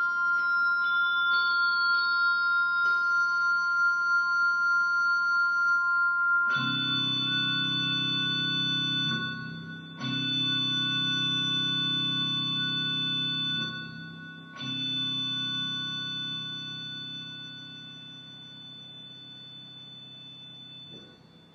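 Organ playing a held high chord whose upper notes shift. About six seconds in, loud low sustained chords come in three times with short breaks between them, and the last chord fades away, ending the piece.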